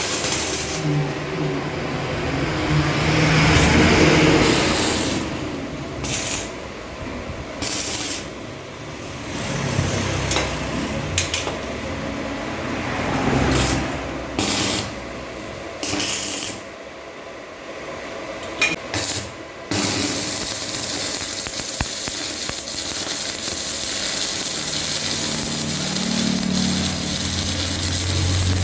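A motorised workshop tool running, in uneven spells that start and stop at first, then steadily from about two-thirds of the way through.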